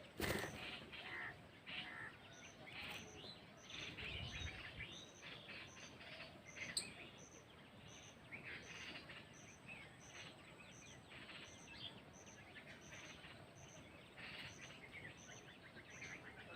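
Birds chirping and calling in quick, irregular bursts, with a faint high note repeating about twice a second behind them.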